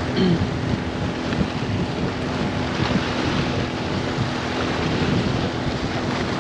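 Wind buffeting the microphone over fast-moving water washing against rocks, with a steady low hum underneath.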